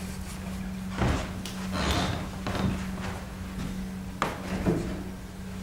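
A few dull wooden knocks and bumps from framed paintings being handled and shifted against one another, about four in all, over a steady low hum.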